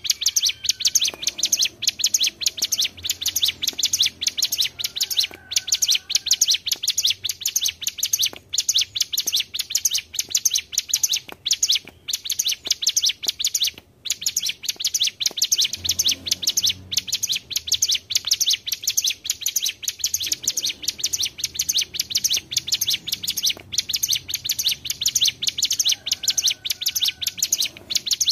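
Hill prinias (ciblek gunung) singing a fast, continuous rolling trill of high notes, with only brief breaks; several birds overlap, as used in a lure recording to call in other prinias.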